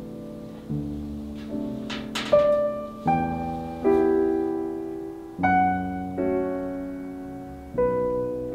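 Slow solo piano music: single notes and soft chords struck about once a second, each left to ring and fade before the next.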